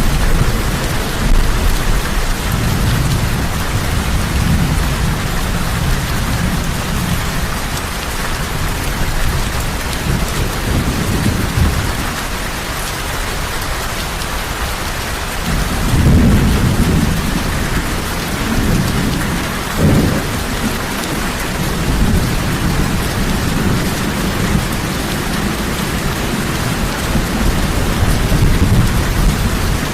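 Heavy rain falling steadily, with low rolls of thunder rumbling underneath. A long rumble fills the first dozen seconds, more rolls come in about halfway through, and a short, sharper burst of thunder follows about twenty seconds in.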